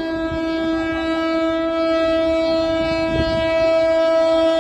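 Train horn blown in one long steady blast at an unchanging pitch, over the low rumble of the train.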